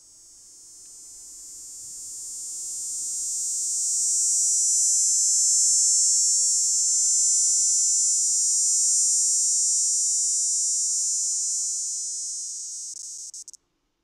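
Male dog-day cicada (Neotibicen canicularis) singing its mating call: one long, high-pitched buzzing drone that swells in loudness over the first few seconds, holds, then tapers and cuts off near the end.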